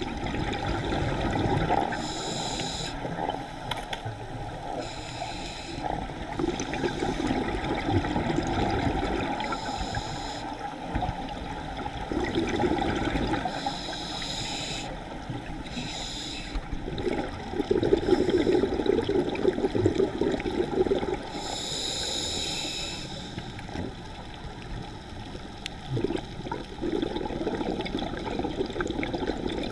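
Scuba diver breathing through a regulator underwater: a short hiss on each inhalation every few seconds, and a low rush of bubbles on each exhalation.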